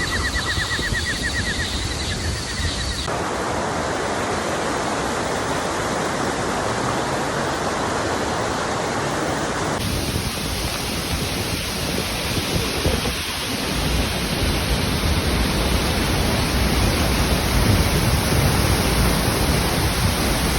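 Waterfall with a steady, loud rush of falling water. The sound shifts abruptly about three and ten seconds in, and grows deeper and a little louder from about two-thirds of the way through.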